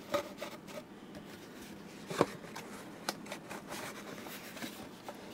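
Cardboard box and bubble wrap being handled as the box is closed: faint rustling with a few sharp taps, the loudest about two seconds in.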